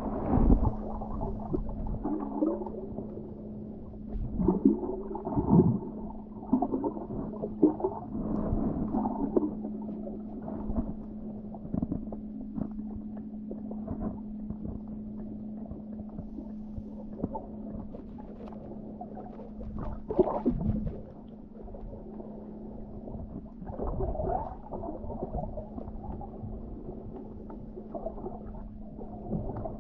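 Muffled underwater sound picked up by a camera below the surface: a steady low hum with irregular gurgles and dull thumps.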